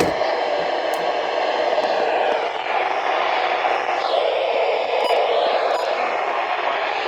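Radio receiver hissing with static on a weak NOAA Weather Radio signal that is not coming in, with a few faint clicks in the noise.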